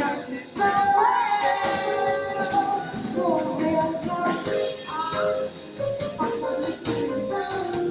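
Live band music: a singing voice over a band with tambourine and drums keeping a steady beat.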